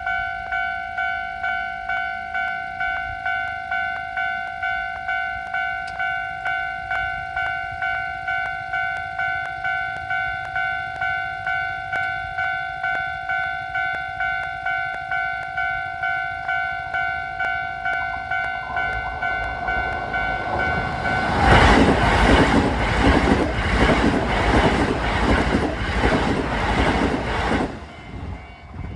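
A Japanese level-crossing warning bell rings as a steady electronic ding, about one and a half times a second. A Keisei 3000-series train rumbles in and passes through the crossing about twenty seconds in, its wheels clacking over the rail joints for about six seconds before the sound drops away.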